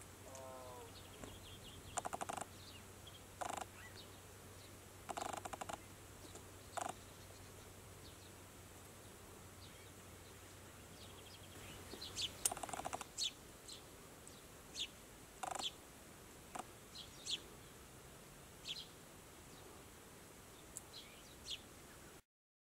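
Iberian azure-winged magpies giving harsh, rasping calls at irregular intervals, several close together about halfway through. Short, high, sharp call notes are scattered through the second half, and a short falling run of notes from another bird comes near the start.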